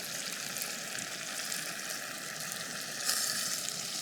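Chicken and potato curry masala sizzling steadily in a cooking pot, briefly louder about three seconds in.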